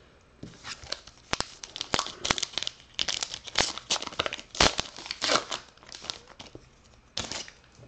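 A 2019 Topps Archives baseball card pack's wrapper crinkling and tearing as it is ripped open by hand: a quick, irregular run of sharp crackles that eases off after about five seconds, with one more crackle near the end.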